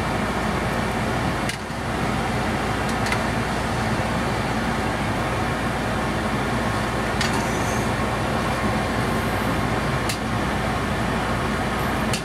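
Steady rushing hum of a kitchen exhaust fan over a stovetop. A few light metallic clicks come from a steel ladle knocking the rim of a steel pan as hot water is scooped over a duck.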